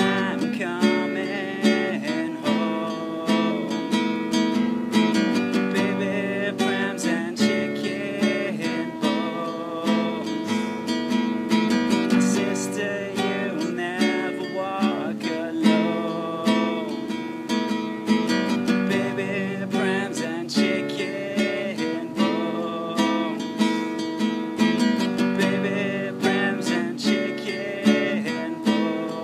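Acoustic guitar strummed in a steady rhythm while a man sings along.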